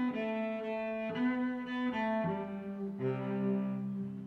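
Background instrumental music: a melody of held notes that change every half second or so, with a low bass note coming in about three seconds in.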